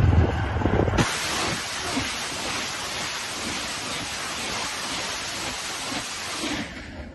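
TOS-1A thermobaric multiple rocket launcher firing a salvo. About a second in, a sudden loud rushing hiss of rocket motors launching starts, carries on steadily, and fades out near the end. A low rumble comes before it.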